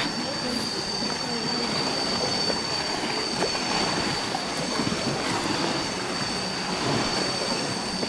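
Cicadas droning in one steady, high-pitched tone, over a constant rustling background noise.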